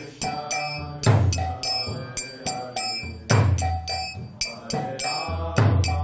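Kirtan instruments playing between chanted lines: kartal hand cymbals strike a steady beat of about three ringing clashes a second. Loud deep drum strokes land about every two seconds, and held melody notes sound beneath them.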